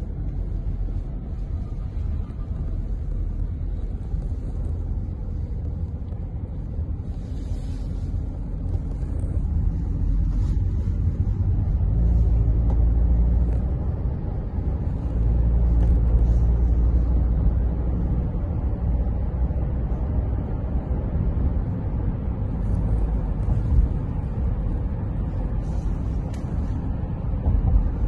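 Steady low rumble of engine and road noise inside a moving car's cabin, growing a little louder about halfway through.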